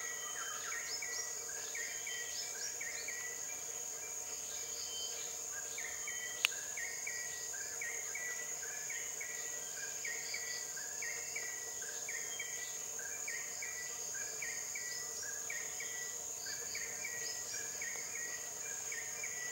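Tropical forest insect chorus: a steady high-pitched drone with a lower steady hum beneath it, and a short chirping note repeated a little more than once a second throughout. A single sharp click about six and a half seconds in.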